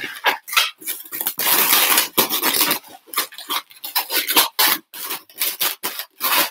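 Latex modelling balloons squeaking and rubbing against each other and the hands as they are twisted and locked into a figure, in a fast, irregular run of short squeaks and scrapes.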